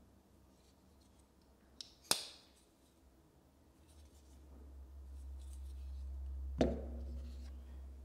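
Titanium-handled folding knife's blade snapping shut with a sharp, bright metallic click about two seconds in. A second, lower click follows about six and a half seconds in, over a low rumble of handling.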